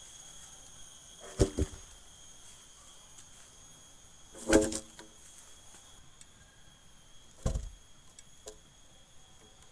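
A few separate wooden knocks and thuds as sawn coconut-trunk slabs are handled, the loudest about four and a half seconds in. Under them runs a steady, high, thin insect drone.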